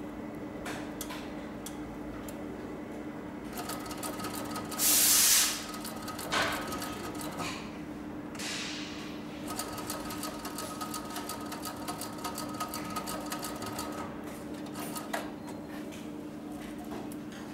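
Cylinder-bed walking-foot lockstitch machine (CowBoy 6900) sewing through leather: a rapid stitching clatter over a steady motor whine, in two runs of a few seconds each with a pause between, and scattered single clicks before and after. A brief loud hiss about five seconds in.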